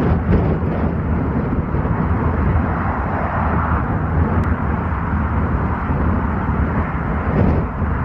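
Gusty storm wind buffeting the microphone in a steady, fluttering rush, with the drone of a twin turboprop airliner coming in to land.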